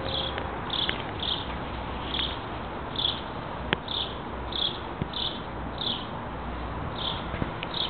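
An insect chirping: short, high chirps repeating every half second to a second over a steady background hiss, with a few sharp clicks, the loudest about halfway through.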